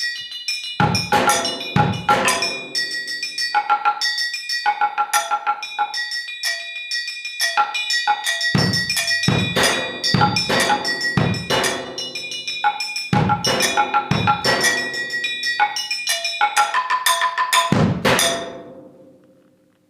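Solo percussion: fast, dense strikes on ringing metal objects over recurring low drum thumps. Near the end the playing stops suddenly and the ringing dies away to silence.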